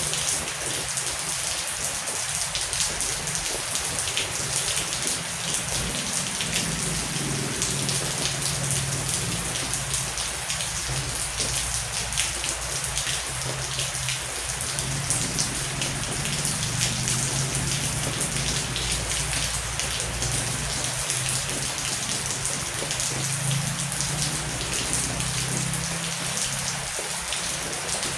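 Heavy rain falling steadily, a dense hiss of drops on surfaces, with a low rumble of distant thunder underneath from about six seconds in.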